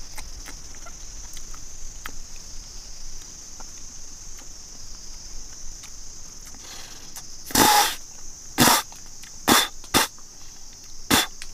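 A person spitting out fruit seeds: about five short, sharp puffs starting about halfway through, the first a little longer than the rest, over a steady high buzz of insects.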